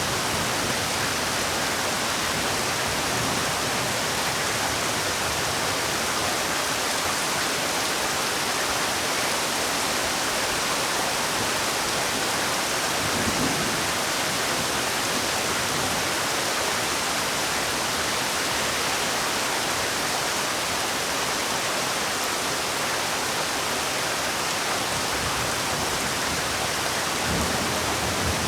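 Heavy rain falling, a steady dense hiss, with a brief low rumble about halfway through and another near the end.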